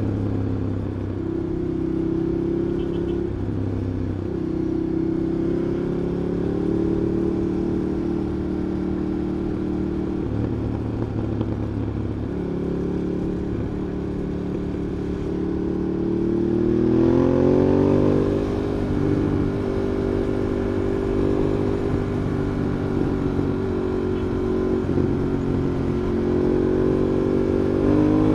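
Ducati Monster 821's 821 cc L-twin engine running at modest revs in city riding, heard from a microphone in the rider's backpack. Its pitch shifts slightly with the throttle, then climbs in a rising sweep about two-thirds of the way in as the bike accelerates, and settles again. It rises once more right at the end.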